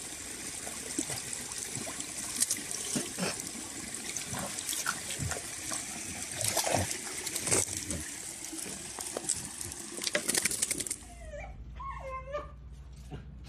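Shallow stream water rushing and splashing as a dachshund wades through it, with frequent sharp splashes. About 11 s in the water stops and a dog gives a few short whining cries that rise and fall in pitch.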